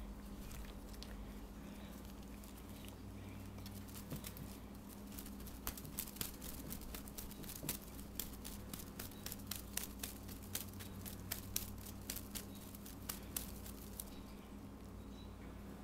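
A quick, irregular run of light taps and scratches as a cat bats at a feather wand toy on a tabletop: paws and claws striking the surface and feathers brushing it. The taps start about four seconds in, come thickest in the middle and stop shortly before the end, over a faint steady hum.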